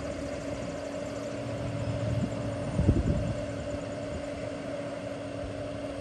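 A steady mechanical drone with a constant hum, running evenly throughout, with a brief low thump about three seconds in.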